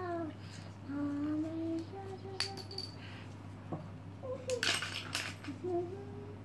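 A young child humming and vocalizing in short pitched phrases while a handful of colored pencils click and rattle together in her hand. There is a sharp clink about two and a half seconds in and a longer rattle near five seconds.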